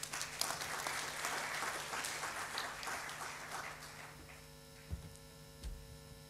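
Audience applauding, dying away after about four seconds, over a steady electrical hum from the sound system. A few soft low thumps follow near the end.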